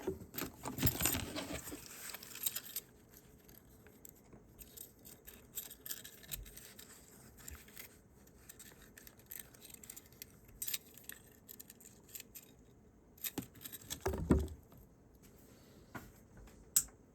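Handling noise of small metal objects, jangling and clicking: a burst in the first few seconds, scattered light clicks, another short burst about fourteen seconds in, and a sharp single click near the end.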